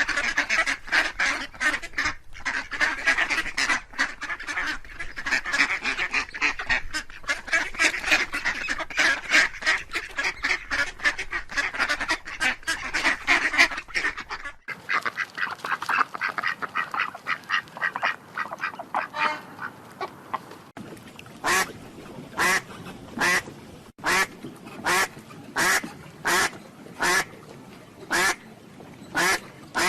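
Ducks quacking. The first half is a dense chorus of rapid, overlapping quacks from several birds. After a sudden change about halfway, single loud quacks follow one another evenly, a little more than one a second.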